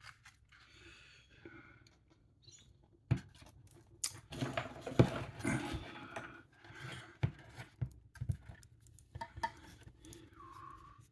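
Light clicks, taps and soft scraping as small model-kit parts and tools are handled on a workbench, with a brief squeak near the end.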